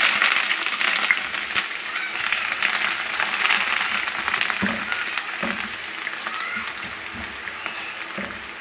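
Shredded bitter gourd (karela), just added to hot oil in a non-stick frying pan, sizzling loudly at first and slowly dying down. A few knocks near the middle as a spatula stirs it.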